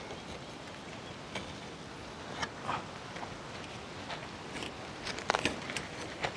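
A few light clicks and scrapes of metal working at the dough-sealed lid of a dum biryani pot, with the sharpest pair about five seconds in, over a steady background hiss: the dough seal being broken to open the dum.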